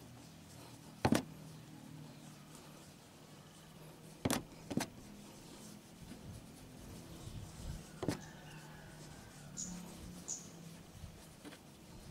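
A few sharp, brief knocks: one about a second in, two close together around four seconds, one around eight seconds. A faint low steady hum runs underneath.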